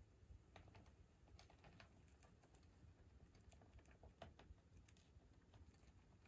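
Faint, irregular tiny clicks of a baby hamster nibbling a cabbage leaf, with one slightly louder click about four seconds in.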